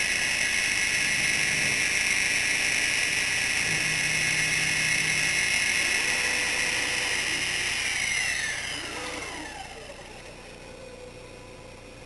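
CNC router spindle running at high speed with a steady high-pitched whine. About eight seconds in it is switched off and spins down, its pitch falling over about two seconds, leaving a quieter low hum.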